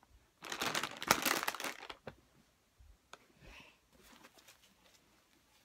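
Disposable diaper crinkling as it is handled: a loud stretch of rustling for about a second and a half, then softer rustles.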